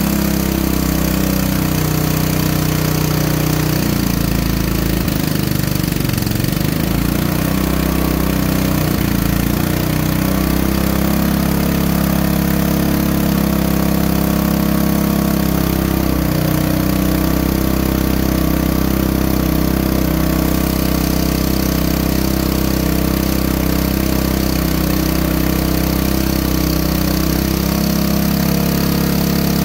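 Small petrol engine of a generator running steadily under load, its speed wavering briefly from about four seconds in before settling again.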